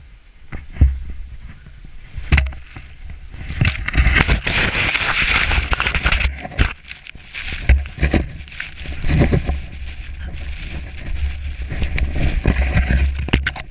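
Snow avalanche moving right around the microphone: a loud rushing hiss of sliding snow with crunches and sharp knocks as the slab breaks up, over a deep rumble. The rush is strongest from about four to six seconds in.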